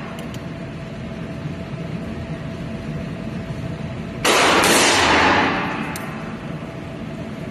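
A single shot from a revolver chambered in .30-30 Winchester about four seconds in: a sharp crack with a long echo off the indoor range's walls, fading over about a second. A steady low hum sits underneath.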